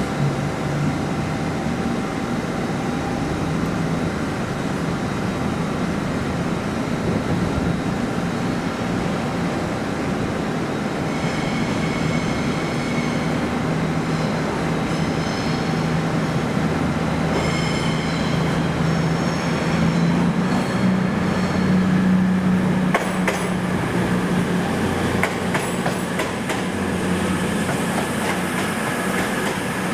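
A train moving through the station: a steady low hum under rolling noise, with high-pitched wheel squeal coming and going in the middle and a few sharp clicks of wheels over rail joints near the end.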